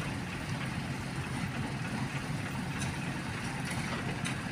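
Heavy diesel machinery idling, a Sany excavator and a concrete mixer truck running together, as a steady low drone with a few faint ticks.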